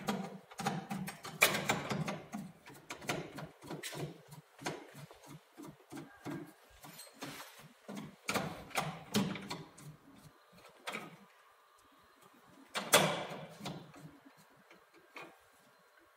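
Hand screwdriver turning screws into the metal strike plate of a door frame: irregular clicks, taps and scrapes of metal on metal, with a louder knock about three-quarters of the way through.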